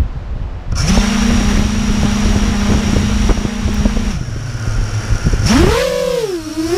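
Wind on the microphone, then about a second in the electric motors of a stock Horizon Hobby Scimitar LRX FPV drone spin up to a steady idle hum with a thin high whine. About five and a half seconds in they rev up and down in pitch as the drone takes off.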